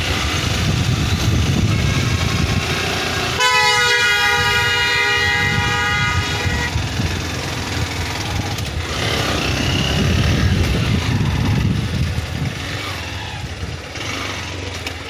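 Motorcycle riding through a hairpin bend, its engine running under a loud, dense rumble of wind and road noise. About three seconds in, a horn sounds with one steady tone for about three seconds.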